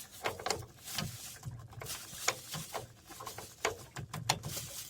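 Irregular clicks and knocks of hands and tools handling the thermostat and its gas-line fitting on a gas water heater.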